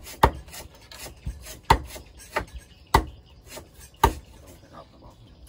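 A knife chopping meat into chunks on a cutting board: sharp chops a little over a second apart, with lighter knocks in between.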